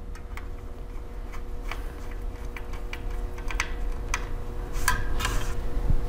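Small irregular clicks and taps of a 2.5-inch SATA SSD being fitted into a laptop's metal drive caddy and its mounting screws driven in with a small Phillips screwdriver, with a louder brief clatter about five seconds in.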